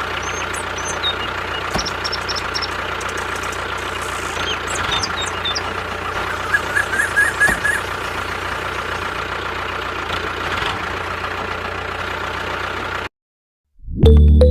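Tractor engine running steadily, with a few short high chirps over it. It cuts off suddenly about a second and a half before the end, and after a brief silence music starts.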